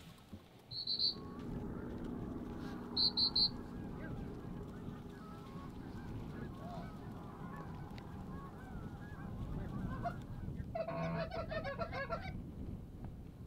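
Canada goose honking and clucking, many overlapping calls, with a louder run of rapid honks near the end as a flock comes in low.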